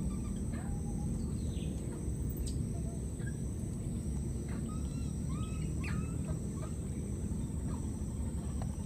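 Outdoor ambience of scattered short bird chirps and slurred whistles, many calls a second apart, over a steady low rumble and a thin, continuous high-pitched whine.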